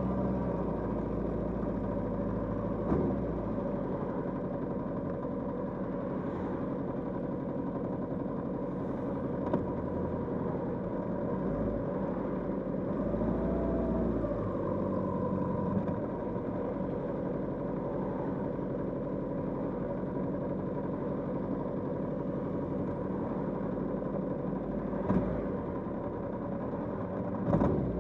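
Kawasaki GPZ550's air-cooled inline-four engine running at fairly steady revs, with a brief rise and fall in pitch about halfway through and a few short clicks.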